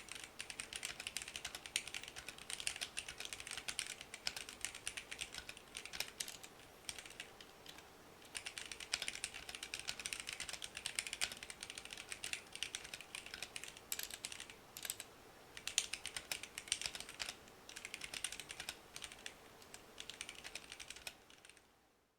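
Typing on a stock, out-of-the-box Womier K66 acrylic-cased mechanical keyboard: fast runs of key clicks broken by short pauses, stopping just before the end.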